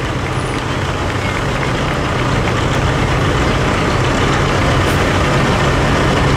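A Peterbilt street semi's diesel engine running loud and steady, with the truck nearly stopped at the end of a pull.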